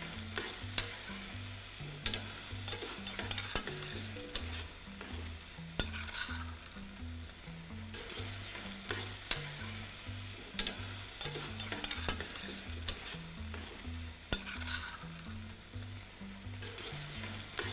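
Diced peppers, onion and tomato sizzling in a stainless steel sauté pan over a gas burner while a spoon stirs them, with scattered clicks of the spoon against the pan.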